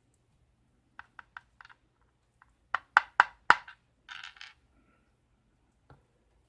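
Small metal lock pins from a Schlage KIK cylinder dropping and clicking onto a hard surface: a few light ticks, then four sharper ringing clicks in quick succession, a short rattle, and one more click near the end.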